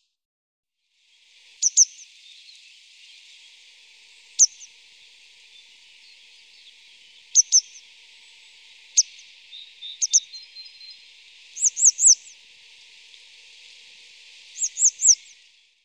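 Birds chirping: short, sharp, high chirps that sweep downward, singly or in quick runs of two to four, over a steady high hiss. The sound fades in about a second in and fades out just before the end.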